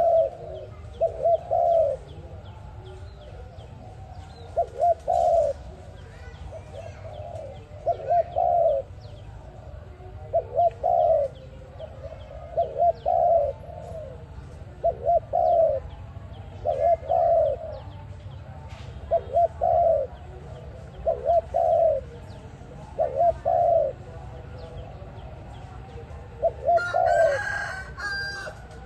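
A dove cooing over and over: short coo phrases repeated about every one and a half to two seconds. Near the end a louder, noisier burst lasting about a second and a half sounds over the coos.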